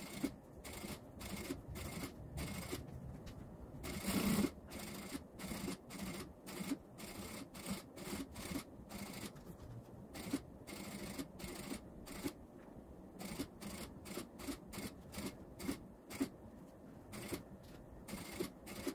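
Industrial sewing machine stitching slowly in short, uneven runs: a string of light clicks from the needle mechanism, with fabric rubbing as piping is guided around a curved edge, and a louder burst about four seconds in.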